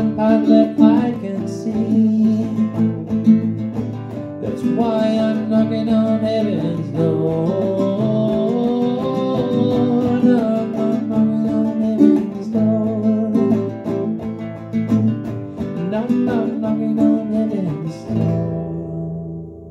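A nylon-string classical guitar strummed in chords, with a man's singing voice over it. About eighteen seconds in the strumming stops and the last chord rings on and fades.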